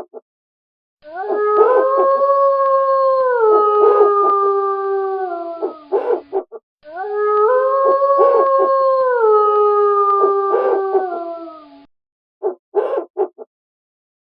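Wolf howling: two long howls, each rising at the start and then sliding down in steps, the second a near-identical repeat of the first. A few brief short calls come between them and after.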